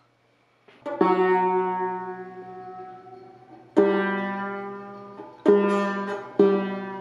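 Banjo strummed in chords, four strums that each ring out and fade: one about a second in, then three more closer together in the second half. It is being played to check it after a new bridge has been fitted and the strings tuned.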